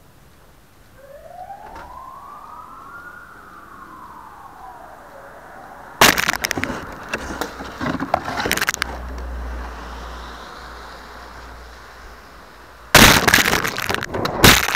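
A distant siren gives one slow wail, rising and then falling in pitch. About halfway through, and again near the end, loud scraping and rustling cover it as the keychain camera on the cardboard plane is picked up and handled.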